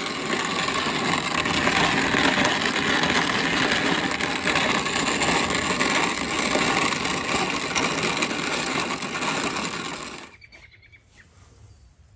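Grain mill grinding dried corn kernels into coarse cornmeal: a loud, steady grinding that stops abruptly about ten seconds in.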